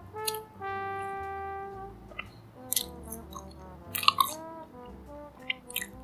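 Light background swing music led by a trombone, including one long held note about a second in. Over it come close-up eating sounds from chewing a wafer ice cream sandwich: a few sharp, crackly clicks, the loudest around four seconds in.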